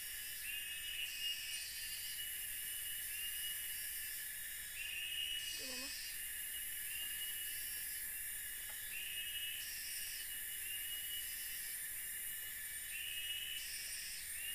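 Tropical forest insects calling: a steady high-pitched buzz, a repeated chirp about once a second, and a second call that switches on and off every second or two. A brief low call sounds once near the middle.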